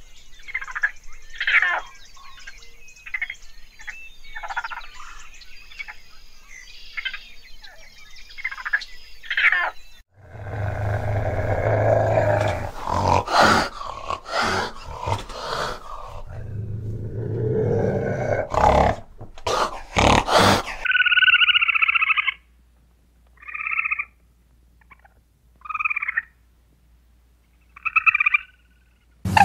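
Animal calls in three parts. First a string of short high chirps and squeals, then about ten seconds of loud growling with sharp bursts, then a few short calls with silent gaps between them.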